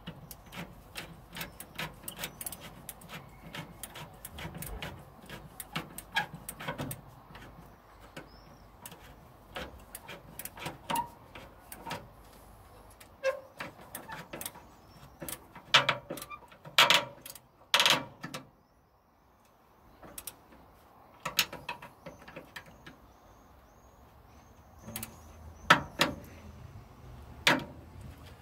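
Worm-drive hose clamp on the upper radiator hose being tightened with a screwdriver: irregular metallic clicks and scrapes, with a few sharper clicks in short runs.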